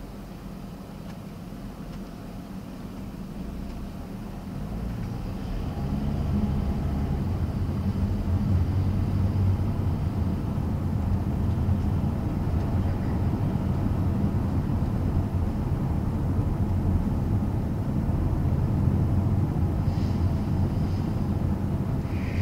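Engine and road noise of a Toyota RAV4 heard from inside the cabin. The low rumble grows louder about five seconds in as the car speeds up, then holds steady while it cruises.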